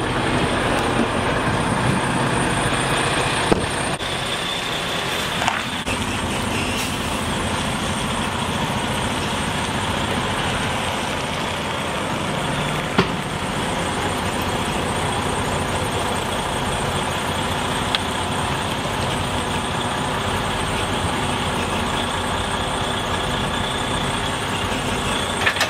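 Semi-truck's diesel engine running steadily close by, with a few faint clicks along the way.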